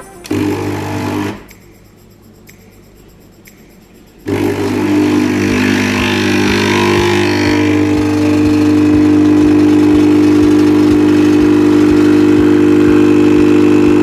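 Stirling espresso machine's pump starting about four seconds in and running with a steady buzzing hum as it pushes water through the ground coffee, pulling a double shot of espresso into the cup.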